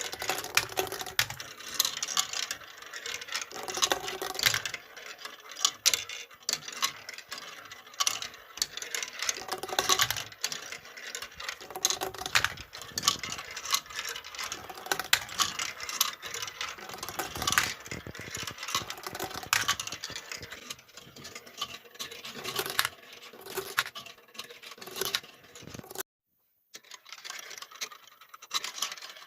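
Marbles rolling and clattering down a wooden HABA marble run, a dense stream of clicks and knocks. The sound drops out completely for under a second near the end.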